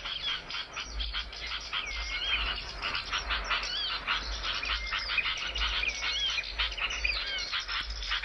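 Small songbirds calling without a break: a dense stream of rapid chips and ticks laced with short, curving whistled notes. It is a recorded bird-call track of the kind played to train caged birds or to lure wild ones.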